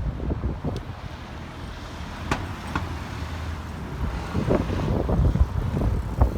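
Outdoor city ambience: road traffic passing, with wind buffeting the microphone and a few sharp clicks.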